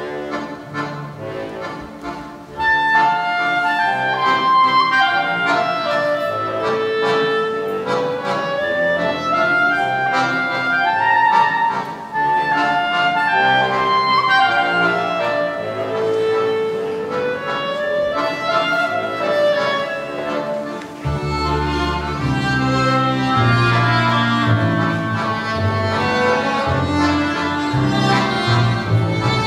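Instrumental music from a small acoustic ensemble of strings and winds, with a melody line over accompaniment. It gets louder about three seconds in, and a deep bass line joins about two-thirds of the way through.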